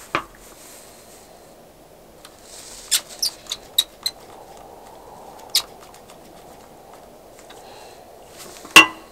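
Precision screwdriver driving the two tiny bottom screws beside the charging port of an iPhone 7 Plus: a scatter of faint clicks and ticks, bunched together about three to four seconds in, with one louder knock near the end.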